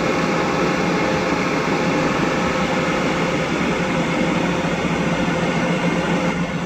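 A car driving at a steady speed: constant engine and road noise with a low hum running through it.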